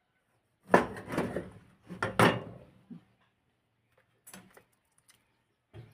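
Knocks and clatter of hard objects being handled: a loud burst about a second in, another about two seconds in, then a few lighter knocks near the end.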